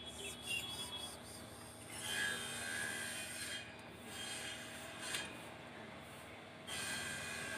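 Multimeter probe tips scraping and tapping against solder joints on a circuit board, a faint rubbing with a few small clicks. Faint high-pitched chirps come and go in the background.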